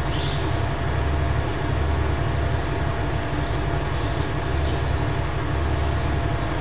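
Steady low rumble with a faint steady hum above it, a continuous machine-like drone that wavers slowly in its lowest part.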